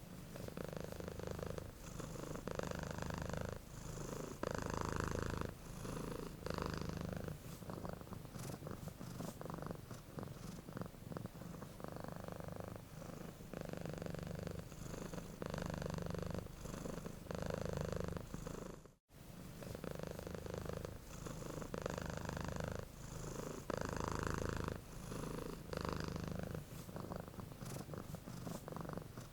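Sleeping cat snoring: a low rumble that swells and fades with each breath, about every couple of seconds, broken by one brief gap about two-thirds of the way through.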